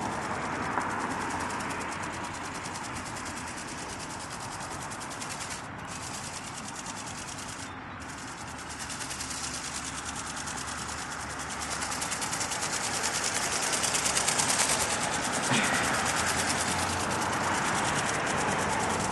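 Small radio-controlled ornithopter in flight, its electric motor, gearbox and flapping wings making a fast, fine rattling whirr that grows louder in the second half.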